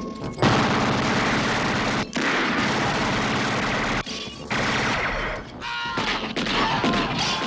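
Sustained automatic gunfire in long bursts from a film soundtrack, starting about half a second in and breaking off briefly a few times.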